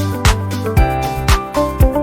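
Background music with a steady beat: a funk-style track with a kick drum about twice a second, bass line and melody.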